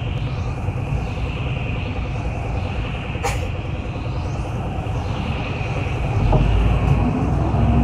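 Inside a moving city bus: steady engine and road noise with a persistent high hum, a single sharp click about three seconds in, and a low rumble that grows louder near the end.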